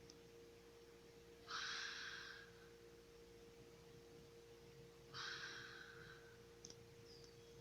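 A sleeping man snoring softly: two breathy snoring breaths, each about a second long and about three and a half seconds apart, over a faint steady hum.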